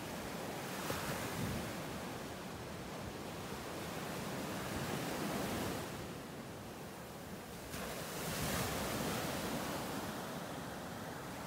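Ocean surf: waves breaking and washing up a sandy beach in an even hiss, swelling louder every few seconds as each wave comes in.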